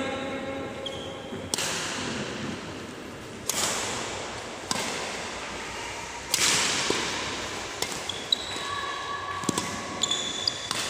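Badminton rally in a reverberant sports hall: sharp racket strikes on the shuttlecock every second or two, each trailed by the hall's echo. In the last few seconds, short high squeaks of shoes on the court mat.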